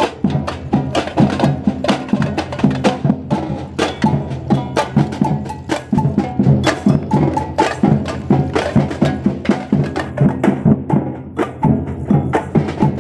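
Street drum group playing a fast, steady rhythm on large stick-struck drums, with a quick run of sharp hits over low, ringing drum tones.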